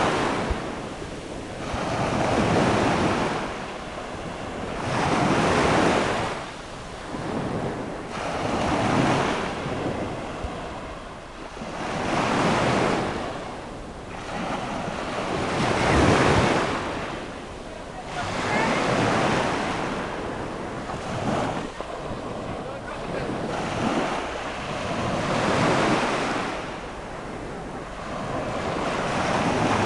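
Small sea waves breaking and washing up a sandy beach, a rushing surge of surf that swells and fades about every three to four seconds.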